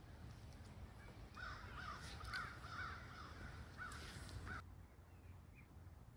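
A bird calling: a quick run of short rising-and-falling calls starting about a second in, which cuts off suddenly around four and a half seconds in, leaving only faint outdoor background.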